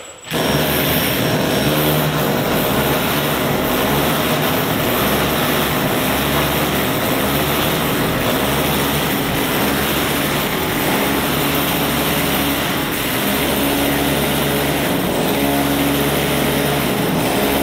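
Electric drill boring the hole through a wall for an air conditioner's pipe, its motor running continuously under load, with the pitch shifting slightly as it bites.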